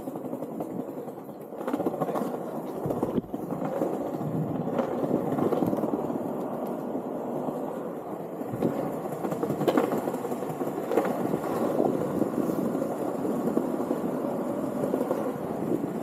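Landyachtz Dinghy cruiser skateboard rolling over stone paving slabs: a steady rough rumble from the wheels, with a few sharper clicks scattered through it.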